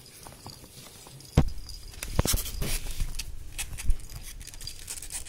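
Six-week-old ferret kits scrambling and wrestling on a blanket: soft rustling, then a thump about a second and a half in, followed by a string of sharp knocks and clicks.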